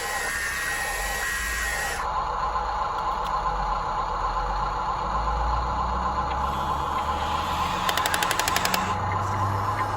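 Radio-controlled construction vehicle's small electric motor whining steadily, with a burst of rapid clicking near the end.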